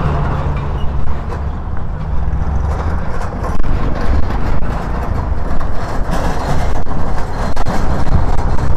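Motorcycle running under way, a steady low drone and rumble from the engine and the ride.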